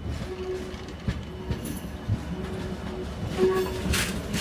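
Tangara electric train set T64 passing slowly, its wheels rumbling and knocking irregularly over the rails, with a faint on-and-off tone and a brief hiss about four seconds in.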